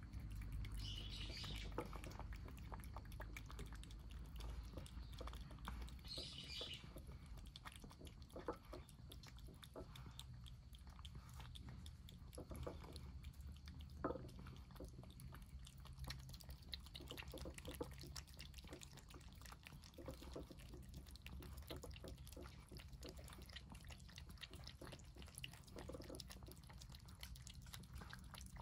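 Cats eating wet cat food from bowls: faint, irregular wet chewing and lapping clicks throughout, over a low steady background hum.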